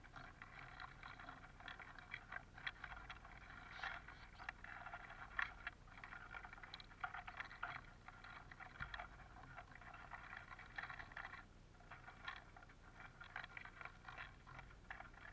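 Eurasian siskins pecking and scrabbling in a feeder tray of black sunflower seeds: a steady run of small clicks and rustles from beaks, claws and shifting seeds.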